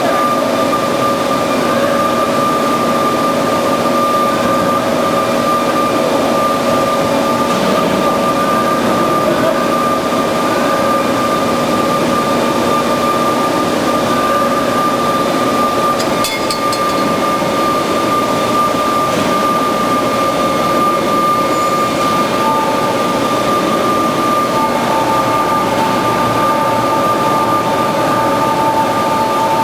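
Band saw running steadily, a constant mechanical hum and whine with a couple of steady tones; another tone joins in about three-quarters of the way through.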